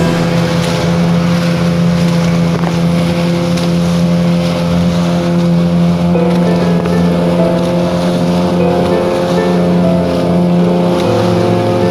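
Engine of a small outrigger fishing boat (jukung) running steadily at sea. Its pitch shifts slightly a couple of times, with wind noise on the microphone.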